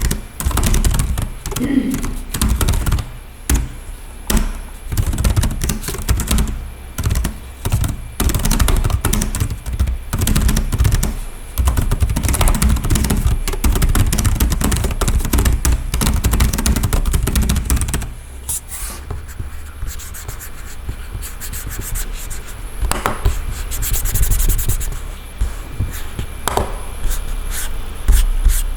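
Typing on the Jooyon CarryBook T Pro laptop's keyboard: a fast, continuous run of key clicks that thins to slower, scattered keystrokes about two thirds of the way through.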